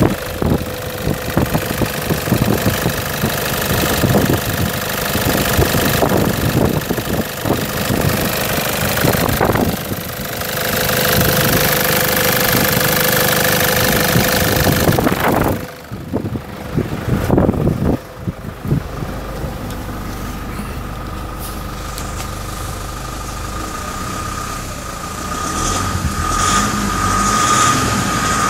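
Nissan ZD30 3.0-litre four-cylinder turbo-diesel running steadily, heard first over the open engine bay and in the last seconds from inside the cab.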